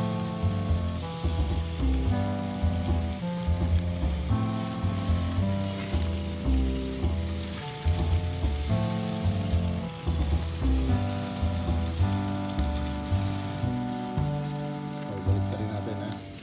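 Pork ribs sizzling on a gas grill, a steady hiss of fat and sauce frying on the grate. Background music with a bass line plays over it.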